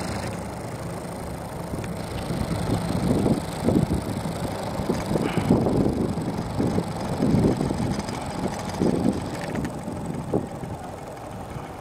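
Wind buffeting the microphone in uneven low gusts, over a steady background hiss.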